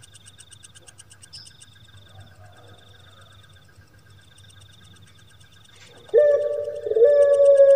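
Faint, fast, high-pitched insect chirping, then about six seconds in a puter pelung (ringed turtle dove, Streptopelia risoria) starts a loud, long, low coo that steps up slightly once and is held.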